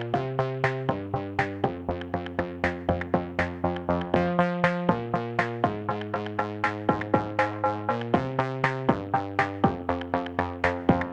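Background music: a steady run of plucked synthesizer notes, about four a second, over chords that change every second or so.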